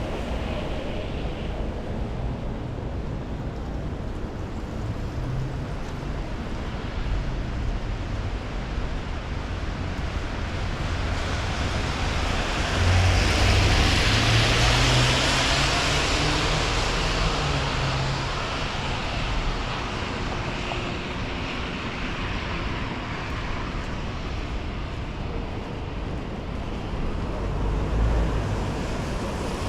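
Wind buffeting the microphone over steady rain and street noise, with a louder rushing swell about twelve seconds in that fades over several seconds.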